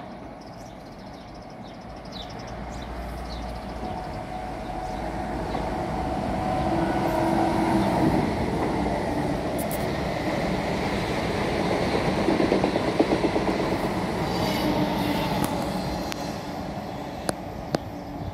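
Renfe Class 730 (Alvia S-730) Talgo train passing by. It grows louder as it approaches, stays loudest for several seconds as it goes past with a short run of clicks from the wheels, then fades as it runs away.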